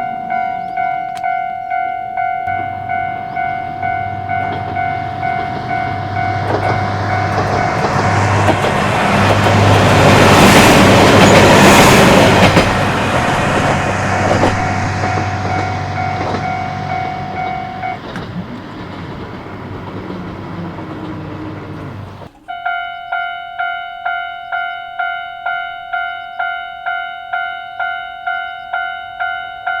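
Japanese level-crossing bell ringing in a steady electronic ding about one and a half times a second while a diesel railcar approaches and passes, its engine hum and wheel noise loudest about 10 to 13 seconds in, with a few clacks over the rail joints. The bell stops about 18 seconds in as the train fades away, then after a brief break starts ringing again abruptly about 22 seconds in.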